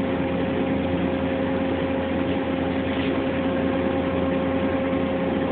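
Steady hum of running CNC machine-shop equipment: an even drone with a few fixed tones that do not change.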